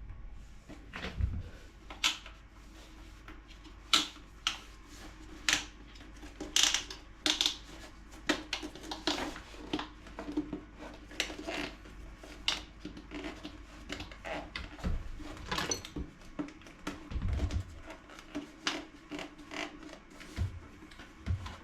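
Irregular clicks, knocks and rubbing of toilet flush valve parts being handled and fitted together by hand, with a washer going onto the new valve.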